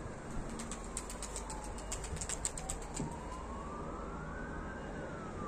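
Emergency-vehicle siren wailing, its pitch sliding slowly down, then up, then down again, over a low steady wind rumble.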